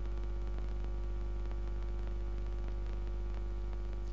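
Steady electrical mains hum, a low buzz at about 50 Hz with a ladder of overtones above it, unchanging throughout.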